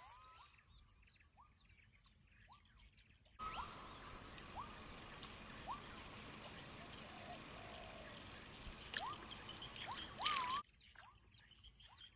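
Insects and birds in marshland: a steady high insect trill with evenly spaced chirps about three times a second, and short falling bird whistles every second or so. The insect sound jumps louder about three seconds in and drops back abruptly shortly before the end.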